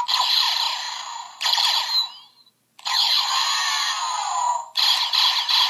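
Power Rangers Dino Charge Deluxe Morpher toy blaster firing, playing its electronic shooting sound effects through a small, tinny speaker: several effects one after another, with a brief silent gap about halfway through.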